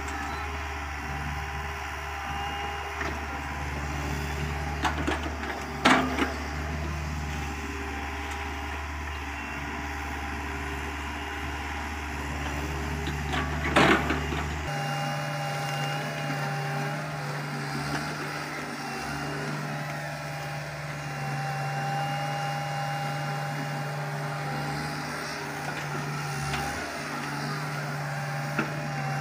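Hitachi Zaxis 48U mini excavator's diesel engine running steadily while it digs, with two sharp knocks about six and fourteen seconds in. The engine note shifts abruptly about halfway.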